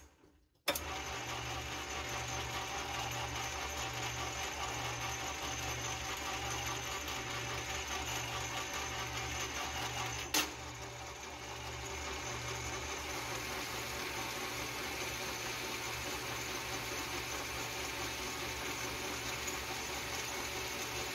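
Metal lathe running steadily, turning the outside diameter of a metal workpiece held in the chuck, with a regular low pulse in its hum. It starts up just under a second in after a brief silence, and there is one sharp click about ten seconds in.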